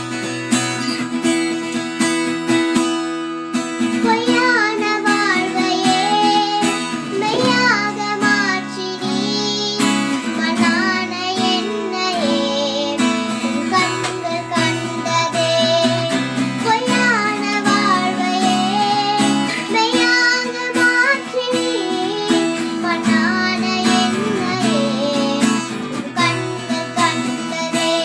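A young girl singing over strummed acoustic guitar. The guitar plays alone for about the first three seconds before her voice comes in.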